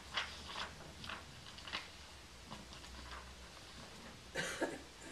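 Faint handling of paper: a few soft rustles and ticks, then a louder rustle near the end.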